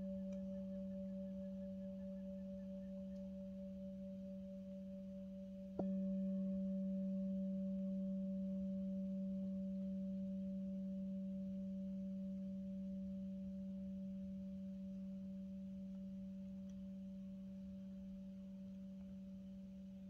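Singing bowl ringing with a low steady tone and fainter higher overtones. It is struck once with a mallet about six seconds in, then slowly fades.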